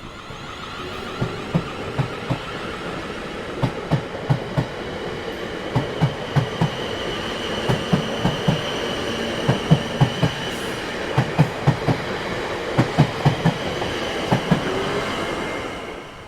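Train rolling past, its wheels clicking over rail joints in repeated groups of three or four clacks, about one group every couple of seconds, over a steady rumble, with a faint wheel whine in the middle. It fades out quickly near the end.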